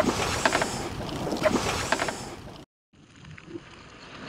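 A hooked tarpon thrashing and splashing at the water's surface beside the boat, with wind on the microphone. The sound drops out abruptly about two and a half seconds in, then returns quieter with more splashing and water noise.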